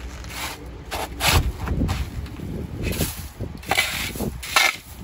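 A metal shovel scraping and crunching into a deep layer of packed, rock-hard hailstones, in a handful of separate strokes.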